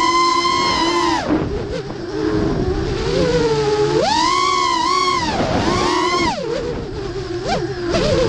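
FPV quadcopter's brushless motors and propellers whining, recorded on board, the pitch rising and falling with the throttle: high for about the first second, lower for a few seconds, high again from about four to six seconds in, then dropping before it climbs again near the end.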